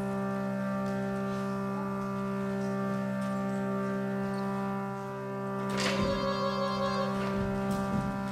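Music: a steady, sustained droning chord, joined about six seconds in by a louder, wavering instrument line.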